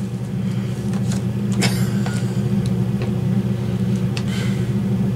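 Steady low hum, with a brief faint crackle of the chip bag being handled about a second and a half in.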